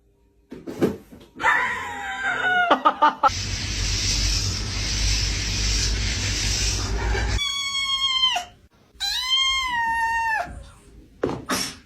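Two long, high-pitched animal calls, each held on one note and falling away at the end, after a few seconds of steady rushing noise.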